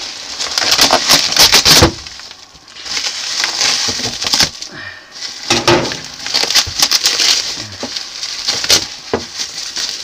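Bubble wrap being cut and pulled open by hand, crinkling and crackling in several bursts with sharp clicks, a pause of about a second between them.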